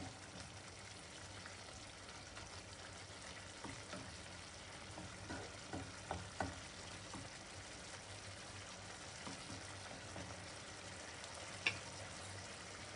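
Prawn vindaloo in its gravy sizzling softly in the pan as it finishes cooking, with a few light clicks in the middle and one sharper click near the end.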